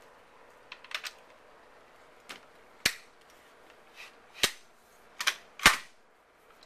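M1 Garand's wooden stock and steel barreled action knocking and clicking together as the action is fitted back into the stock: an uneven series of sharp knocks and clicks, the loudest one late on.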